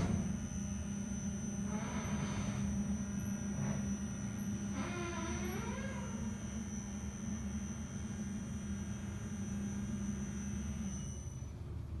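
Angle-changing inclined elevator car running: a steady motor hum with a thin high whine, and brief wavering squeaks about two and five seconds in. The hum and whine stop about eleven seconds in.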